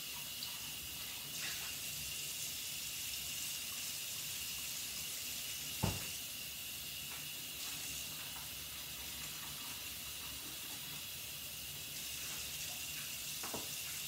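Kitchen tap running into the sink while dishes are washed by hand, a steady hiss of water. A sharp knock of a dish against the sink about six seconds in is the loudest sound, with a lighter knock near the end.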